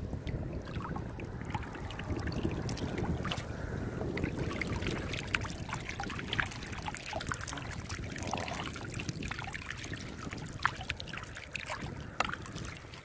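Water lapping and splashing around a mesh eel trap as it is handled in the shallows. Many small, sharp splashes and drips are scattered throughout.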